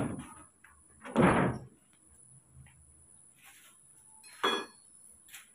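A heavy thump about a second in, like a door or wooden board banging, followed near the end by a shorter, sharper knock.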